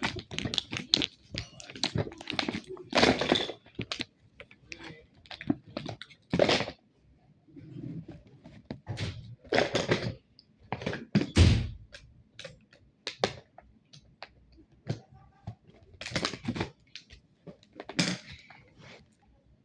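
Irregular knocks, thuds and rustling from objects being handled and moved about, with one heavy thump about eleven seconds in.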